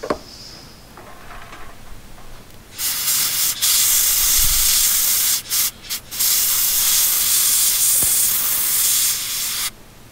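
Compressed air blasting in long hissing bursts onto a circuit board, blowing flux cleaner off a freshly soldered connector. It starts about three seconds in, breaks off briefly a few times, and stops just before the end.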